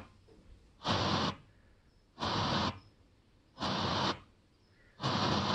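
FM radio tuner, a car head unit converted for home use, stepping through frequencies with no station: four short bursts of static hiss about every second and a half, with silence between them.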